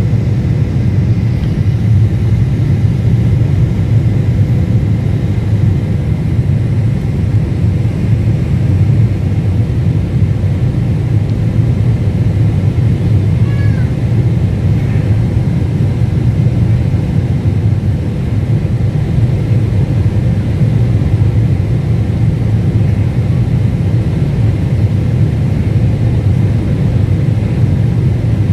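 Steady low rumble inside the passenger cabin of a Boeing 747-8 airliner descending on approach, the engines and rushing air heard from a window seat over the wing.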